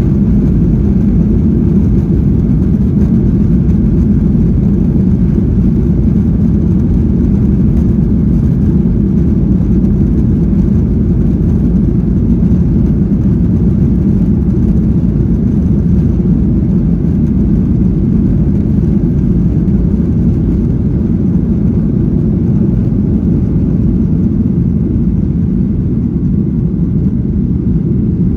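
Boeing 737-800's CFM56-7B jet engines at takeoff thrust, heard from inside the cabin as a loud, steady, deep rumble through the takeoff roll and lift-off.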